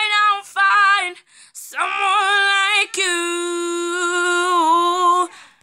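A woman singing unaccompanied, a few held notes and then one long sustained note of about two and a half seconds that wavers slightly near its end and then stops.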